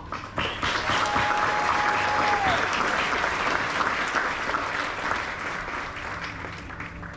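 Audience applauding, starting abruptly and fading toward the end. One long high call rises above it about a second in, held for about a second and a half before dropping off.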